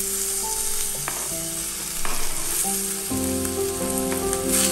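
Sliced onion and green pepper sizzling in hot oil as they are tipped into a non-stick frying pan, with a wooden spoon scraping them off a plastic cutting board. The sizzling gets louder about two seconds in as more of the vegetables hit the pan.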